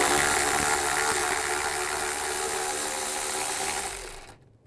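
Cordless electric ratchet spinning a 10 mm socket to back out a bolt, its motor running at a steady whir and then stopping a little before the end.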